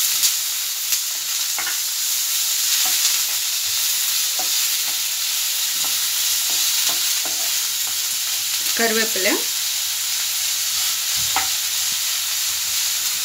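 Chopped onions frying in hot oil in a nonstick pan, a steady sizzle, while a wooden spatula stirs them, knocking and scraping against the pan every second or so.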